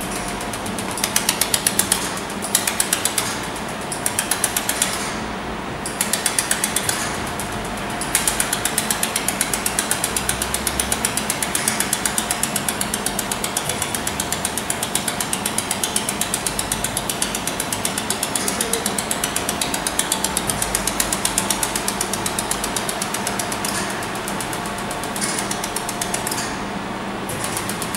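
Pulsed fiber laser welder firing, a rapid, even train of sharp clicks, one per laser pulse. The clicks come in short bursts at first, then run almost without a break.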